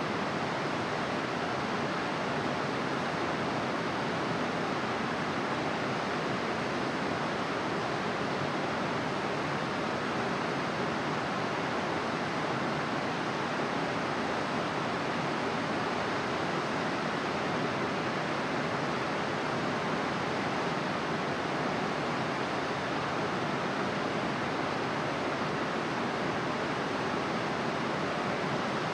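Steady, even rushing of running water with no breaks or changes.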